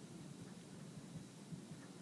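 Faint sound of a marker pen writing on paper over quiet room tone.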